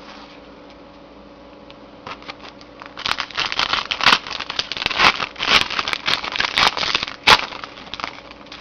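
A foil trading-card pack being torn open and crinkled by hand: a few seconds of irregular crackling and rustling with sharp snaps, starting about three seconds in.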